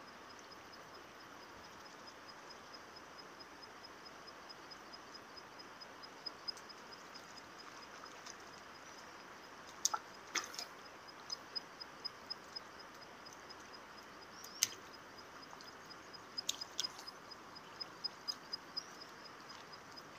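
Quiet riverside background with a faint, rapid, evenly pulsing high chirp. From about halfway, a scatter of short, sharp splashes and knocks as a hooked fish thrashes at the surface near the bank.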